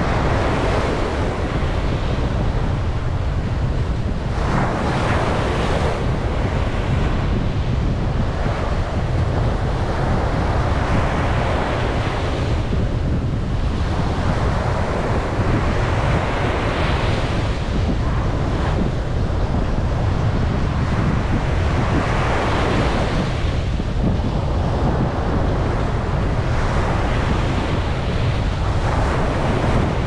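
Ocean surf breaking and washing up a sandy beach, swelling every few seconds, over a steady low rumble of wind on the microphone.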